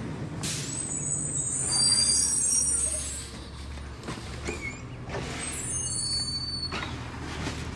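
Labrie Automizer garbage truck's natural-gas engine rumbling low and steady, with high-pitched squeals and several short hisses of air from its air brakes.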